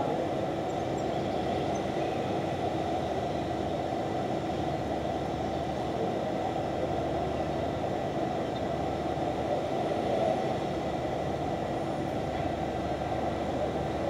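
Steady low rumble of city background noise with a faint steady hum, unchanging throughout.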